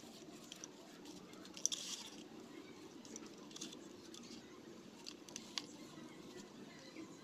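Compressed baking soda crumbling and crunching as fingers squeeze it, a run of faint irregular crackles with a few sharper crunches.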